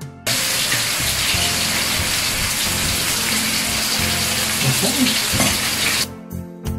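Meat, shrimp and hotdogs sizzling on a tabletop grill pan, a steady frying hiss. About six seconds in it cuts off and soft guitar music takes over.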